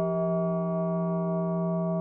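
Synthesized audio model of a late-16th-century Russian bell, sounding a sustained tone: a low hum with a strong higher partial and many fainter overtones, held steady with no new strike.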